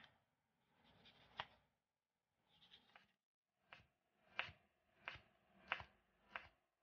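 Chef's knife slicing a yellow bell pepper into strips on a wooden cutting board, each cut ending in a light knock of the blade on the board. One slower cut about a second in, then a steady run of cuts about every two-thirds of a second from about halfway.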